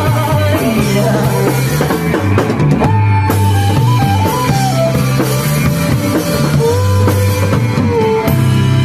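Band playing an instrumental break in a rock song: drum kit keeping a steady beat under a bass line, guitar, and a sustained, gliding lead melody.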